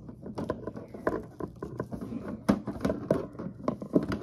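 Plastic wrestling action figures being handled against a toy wrestling ring: a run of quick taps, knocks and clatters, the loudest about two and a half and four seconds in.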